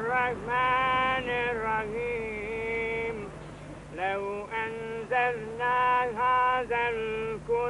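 A man chanting a melodic religious recitation in long, high held notes that slide in pitch from one to the next, over a steady low hum.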